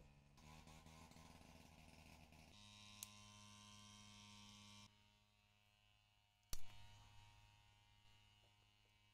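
Near silence: a faint steady low hum whose background changes abruptly a few times, with one sharp click about six and a half seconds in.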